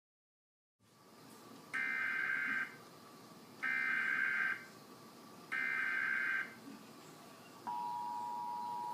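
Emergency Alert System activation: three identical bursts of warbling digital data tones (the SAME header), each just under a second long and about two seconds apart. Near the end the steady two-tone EAS attention signal starts and holds, over a faint hiss.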